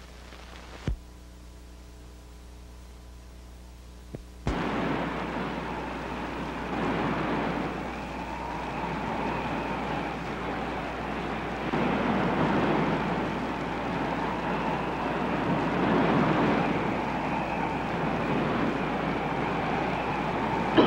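Sandstorm wind sound effect: strong wind blowing, starting abruptly about four and a half seconds in and slowly growing louder. Before it there is a click and a quiet stretch of low soundtrack hum.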